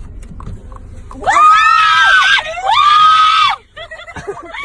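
Two loud, high-pitched screams one after the other, each about a second long, starting about a second in.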